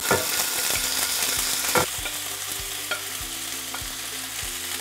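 Raw chicken pieces sizzling as they are laid into hot avocado oil in a cast iron pan: a steady frying hiss, broken by a few sharp clicks of the spatula.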